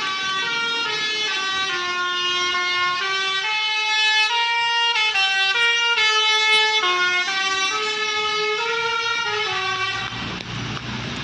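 Bus telolet horn, its roof-mounted air-horn trumpets playing a tune of stepped notes, a few notes a second, for about ten seconds. It stops near the end, leaving a low rumble of vehicle noise.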